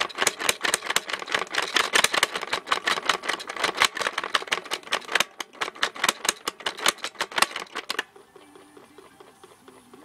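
Toy spin-art machine spinning its card, its mechanism clattering with rapid, uneven clicks that stop abruptly about eight seconds in.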